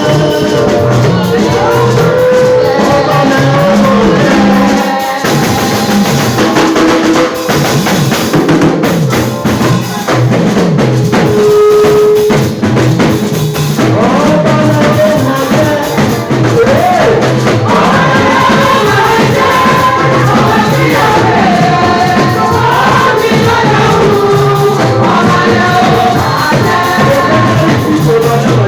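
Loud church worship music: a drum kit keeping a steady beat under singing voices and other instruments.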